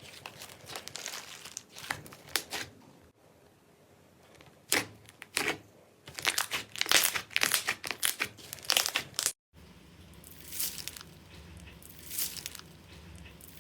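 Slime being squeezed and poked by hand, giving irregular crinkling crackles and pops. The sound breaks off suddenly twice where one clip cuts to the next, and its busiest, loudest stretch comes in the second half.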